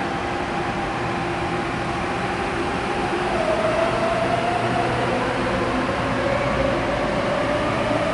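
An Adtranz-built MTR Airport Express electric train pulling out of the station, its traction equipment whining over the rumble of the wheels. The whining tones shift in pitch, and a stronger one comes in about three seconds in as the train gathers speed, heard from the platform through the glass screen doors.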